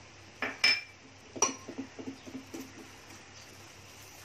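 Spoon clinking against a frying pan as spice powders are stirred and fried in it: sharp ringing clinks about half a second and a second and a half in, then a run of lighter taps and scrapes.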